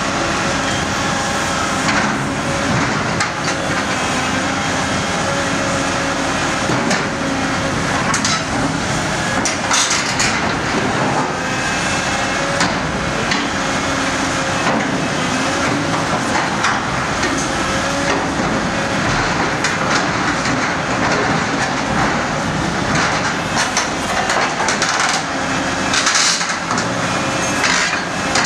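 Volvo EC 950F demolition excavator's diesel engine and hydraulics working steadily under load while its MBI/Dehaco SH 1100R scrap shear grips and cuts scrap metal. Sharp metallic clanks and crunches come every few seconds.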